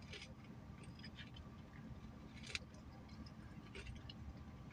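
Faint sounds of eating a hash brown: soft mouth and handling noises with scattered small clicks, one sharper click about halfway through, over a low steady hum.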